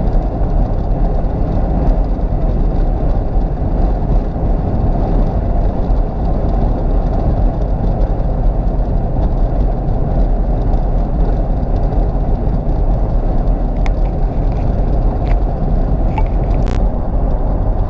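Steady road and engine noise heard inside a moving car's cabin, a deep even rumble, with a couple of faint clicks near the end.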